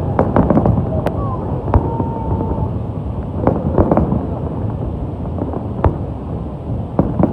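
Fireworks going off: a run of irregular bangs and crackles, with the loudest bursts about half a second, three and a half seconds, and near the end, over a steady rumble of a crowd.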